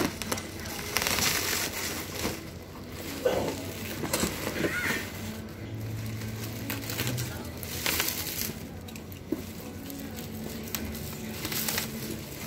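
Black bubble-wrap and plastic film packaging crinkling and tearing in irregular bursts as it is slit with a box cutter and pulled away from a cardboard box.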